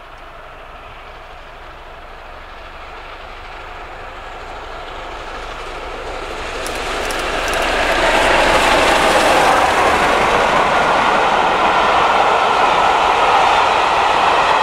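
Peppercorn Class A1 steam locomotive 60163 Tornado, a three-cylinder Pacific, chuffing at speed as it approaches, growing louder until it passes about eight seconds in. After that the noise of its 13-coach train rolling past stays loud and steady.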